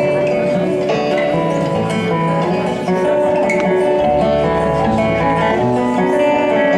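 Live folk music: acoustic guitar picking the instrumental opening of a song, notes changing steadily, with deeper bass notes joining about four seconds in.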